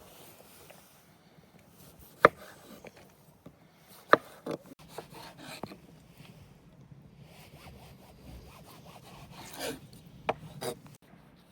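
Sharp knocks on wood with rubbing and scraping between them. Two loud knocks come about two and four seconds in, and two more follow near the end.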